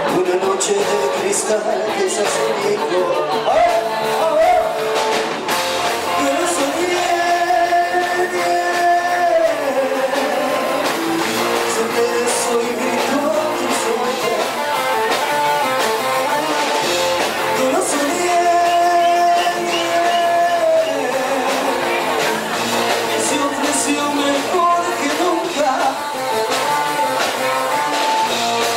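Music: a song with a singing voice holding long notes over instrumental accompaniment.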